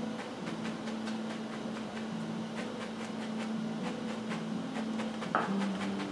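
A stiff 2-inch craft brush is dabbed again and again against a stretched canvas, making soft taps a few times a second. Quiet background music with held notes plays under it.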